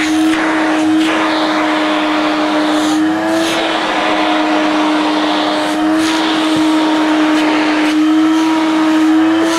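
Vacuum cleaner running steadily: a constant motor hum, its pitch wavering slightly, over rushing air noise.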